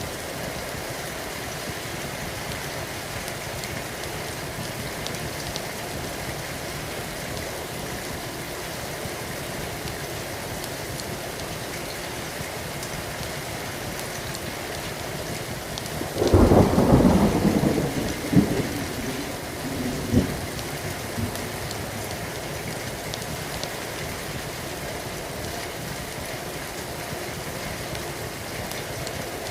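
Steady rain, with a sudden loud thunderclap about halfway through that rumbles for a couple of seconds and is followed by two shorter cracks. Faint crackling of a wood fire ticks over the rain.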